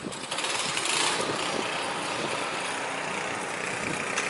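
A boat engine starting up about half a second in, then running steadily.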